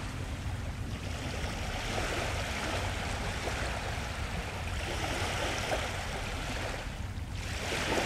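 Steady rushing noise with a low rumble underneath and a hiss above that swells and eases about every three seconds.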